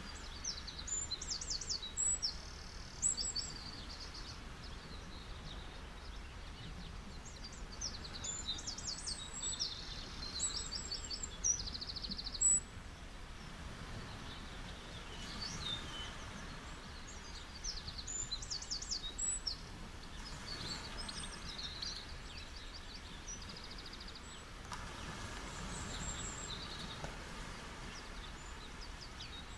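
Soft, steady hiss of ocean waves on a beach, with birds chirping in quick high trills several times over it.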